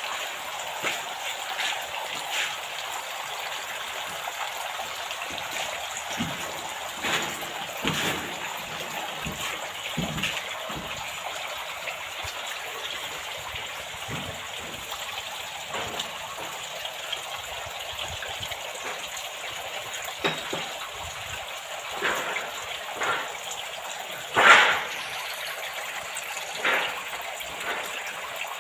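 Water running down an evaporative cooling pad and splashing into the collection gutter below, a steady rushing trickle during a test of the pad's water flow. A few brief louder sounds stand out above it, the loudest near the end.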